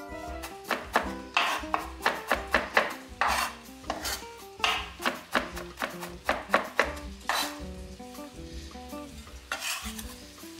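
Sliced onions sizzling in hot oil in a frying pan, with irregular scrapes and knocks from a kitchen utensil, some of them short rasping sweeps.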